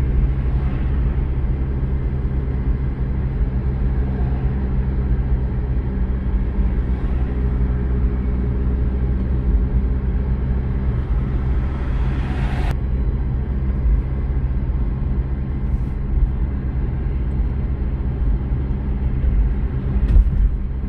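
A car driving along a road: a steady low rumble of engine and tyres with a low hum. A hiss builds and then cuts off suddenly about two-thirds of the way through.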